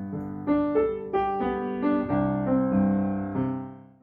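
Piano playing the closing phrase of a children's song: a run of single notes over held chords, dying away near the end.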